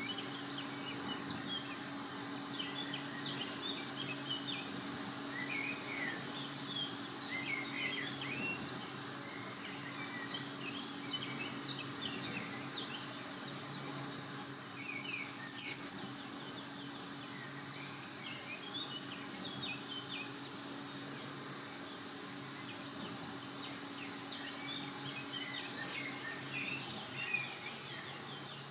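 Small wild birds chirping and singing over a steady low hum. About halfway through, a loud burst of four quick, sharp high notes.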